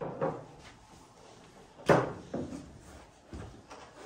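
A few knocks and bumps, the loudest a sharp bang about two seconds in.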